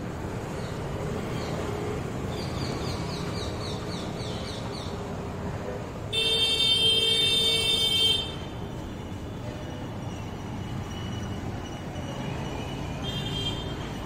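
Street traffic running steadily, with a vehicle horn held for about two seconds midway and a short second honk near the end.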